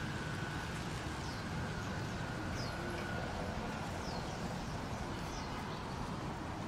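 Beach ambience: a steady low rush, with a short, high chirp falling in pitch that repeats about every second and a half.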